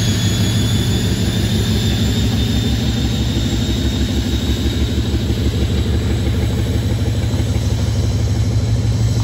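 Class 56 diesel locomotive's Ruston-Paxman 16-cylinder engine running steadily with a deep, pulsing throb as it passes hauling a freight train, with a high whistle above the engine.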